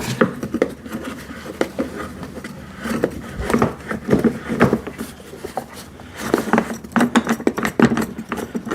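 Irregular knocks, clicks and scrapes of handling an electric wood chipper's plastic housing as its locking knob is unscrewed and the top section tilted open.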